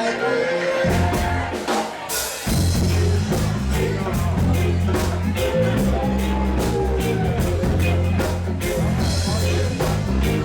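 Live reggae band playing: drums keep a steady beat, and the full band with a heavy bass line comes in about two and a half seconds in.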